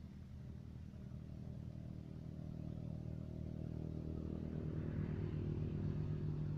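An engine running steadily, unseen, growing gradually louder and loudest near the end.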